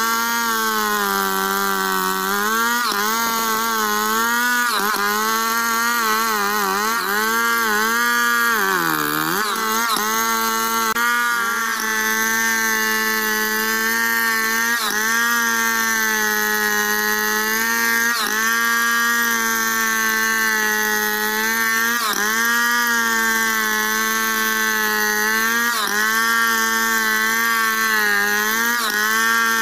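Stihl two-stroke chainsaw running under load as it rips lengthwise along a squared log in freehand milling. The engine pitch sags and recovers as the cut bogs it down, dipping most deeply about nine seconds in, then holds steadier.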